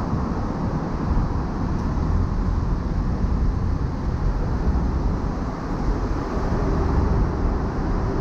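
Steady road noise from a car driving along a highway: a deep, even rumble of tyres, wind and traffic with no distinct events.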